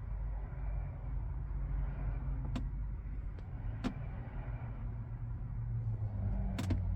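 A steady low rumble with two sharp clicks around the middle, cutting off abruptly at the end.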